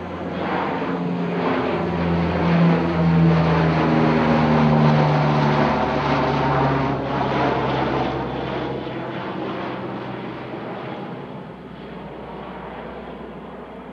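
Twin Allison T56 turboprop engines and propellers of a C-2 Greyhound passing low overhead: the propeller drone swells to its loudest a few seconds in, drops in pitch as the aircraft goes by, then fades over the last several seconds.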